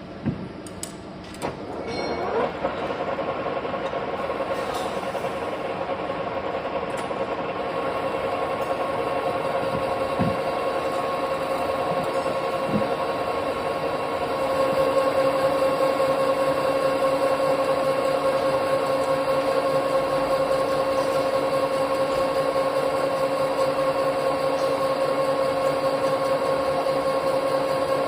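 Metal lathe starting up, its whine rising about two seconds in, then running steadily with a steady whine over mechanical noise. It gets louder about halfway through.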